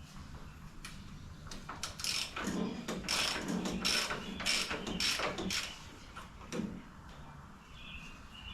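Hand-tool work: a run of about eight short, scratchy mechanical strokes over some three seconds, then one more stroke a second later.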